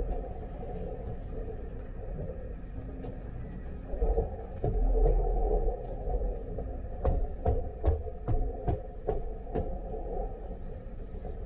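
Footsteps climbing carpeted stairs, an evenly spaced run of thumps about two to three a second in the second half, over a steady low rumble of the ship's machinery.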